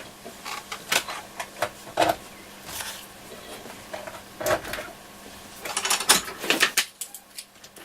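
Irregular clicks, taps and rattles of bench power-supply test leads and their clips being handled and fitted to the terminals, in several small clusters. A faint steady hum runs underneath.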